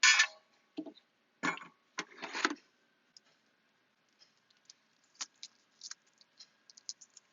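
Plastic printer parts (ink tubing and waste-bottle pieces) being handled: a few short rustling scrapes in the first couple of seconds, then faint scattered clicks and taps.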